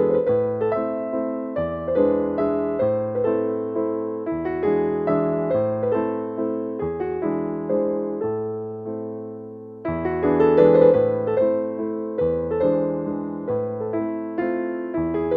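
Background music: a soft piano playing a slow, repeating pattern of notes over low bass notes, with the phrase beginning again about ten seconds in.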